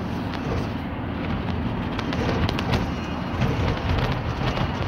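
Steady wind and road rumble from a motorbike moving along the road, with scattered light clicks.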